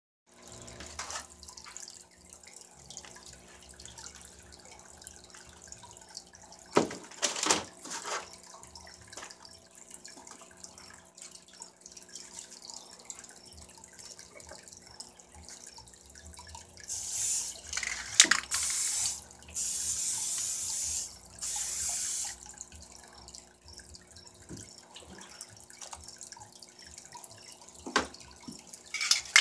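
Aerosol spray paint can hissing in three bursts of a second or two each, about two-thirds of the way through, spraying black paint onto poster board. A few clacks of lids and jars being set down on and lifted off the board come before and near the end, over a faint steady hum.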